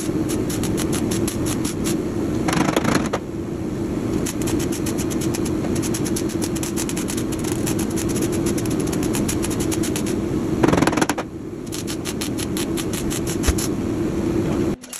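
MIG welder arc-welding the sheet steel of a 1986 Ford F150 cab: a steady, fast crackle over a low hum. The crackle eases briefly twice and stops abruptly just before the end.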